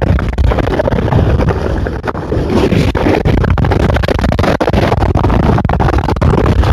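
Storm-force wind blowing hard across the microphone: a loud, rough buffeting noise, heaviest in the low end.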